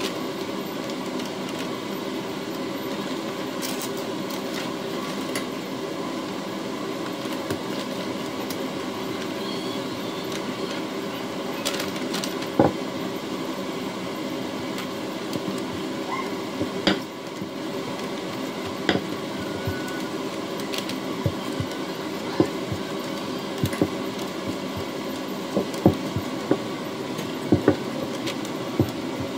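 Steady indoor appliance hum with scattered light taps and knocks as bread dough is shaped and pressed on a silicone mat. The knocks come more often near the end, when a rolling pin is set down and rolled over the dough on the counter.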